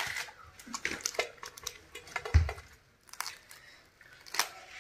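Hands tearing a piece off a homemade pizza with a tandoori-roti base on a steel plate: scattered crackles of the crisp base and topping pulling apart, with a dull knock a little past the middle.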